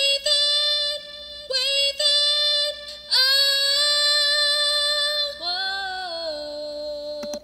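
Recorded solo female vocal take played back, with no backing track: high, belted chest-voice notes held long, with a little vibrato, breaking briefly between phrases.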